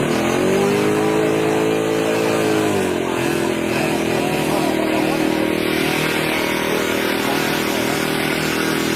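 A small engine revs up sharply, holds at high speed for about three seconds, then drops to a lower steady speed and keeps running.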